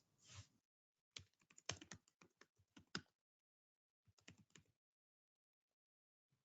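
Faint typing on a computer keyboard: a quick run of keystrokes, then after about a second's pause a shorter run.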